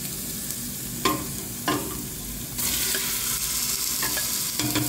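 Diced onion sizzling in smen (clarified butter) in a stainless-steel pot as spice-marinated beef pieces are scraped from a bowl into it with a wooden spoon, with a few sharp knocks against the pot. The sizzling grows louder about two and a half seconds in as the meat lands in the hot fat.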